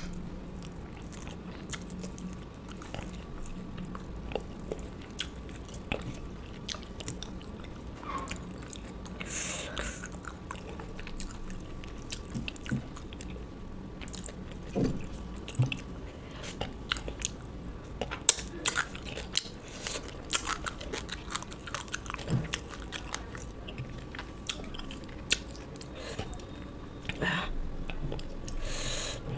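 Close-miked eating of a fish curry and rice meal: chewing and biting with many short, sharp crunches and mouth clicks, and a couple of longer, louder noisy bursts about a third of the way in and near the end.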